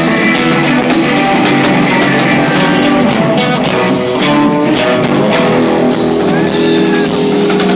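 Rock band playing live and loud: electric guitars, one a hollow-body, over a drum kit.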